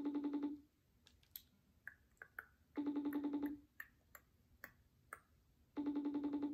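FaceTime outgoing call ringing through a phone's speaker, unanswered: a pulsing tone just under a second long that comes three times, about every three seconds.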